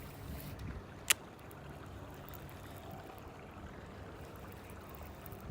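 A single sharp click about a second in, over a steady low rumble and hiss of outdoor background noise.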